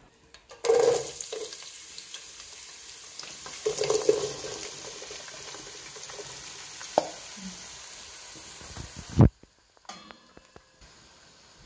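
Hot oil sizzling in a pot as chopped onions are tipped in, with a few dull thuds from the onions landing. A sharp knock comes about nine seconds in, and after it the sizzling drops away to a faint hiss.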